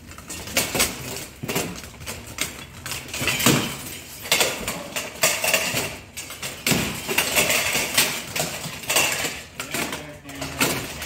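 Steel plate armour and weapons clanking and clattering in irregular metal knocks as two armoured fighters strike and grapple at close quarters.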